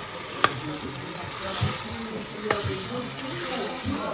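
Shrimp frying in curry sauce in a metal pot, a steady sizzle, while a spoon stirs them and knocks against the pot twice.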